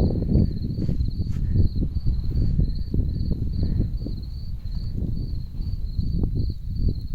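A cricket chirping steadily in a high, even pulse, about three chirps a second, over a louder low rumbling noise.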